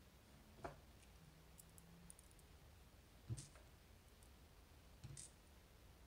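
Three faint, sharp clicks of tweezers and tiny metal parts against an Assa Twin 5700 lock cylinder as it is taken apart: one about a second in, a louder one a little past the middle, and one near the end.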